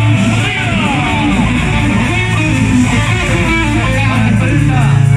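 Live band music: a guitar playing over sustained bass notes.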